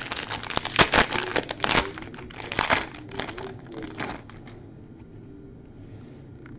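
Trading-card pack wrapper crinkling as it is handled and opened, a dense crackle lasting about four seconds before it stops.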